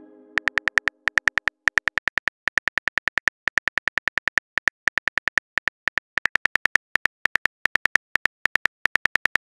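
Simulated phone-keyboard typing clicks from a chat-story app: rapid short ticks, one per letter as a message is typed, about ten a second in runs broken by short pauses.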